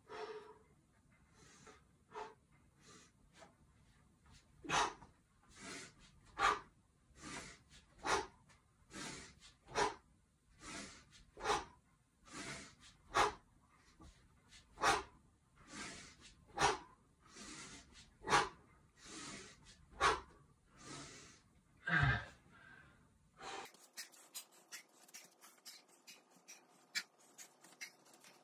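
Sharp, rhythmic breaths, one hard exhale with each one-handed swing of a 24 kg kettlebell, about one a second for some twenty reps. Near the end comes a louder breath with a low thump as the bell is set down, then a run of faint fast ticks.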